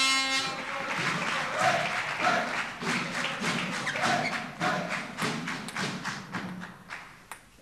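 Spectators clapping and thumping in rhythm, with a short sustained horn-like blast at the start. The clapping thins out and dies away near the end.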